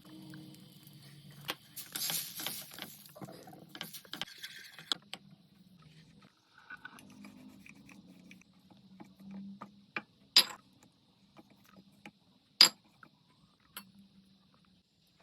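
Kitchen utensils clinking and clattering during food preparation, scattered light knocks with two sharp, louder clicks in the second half.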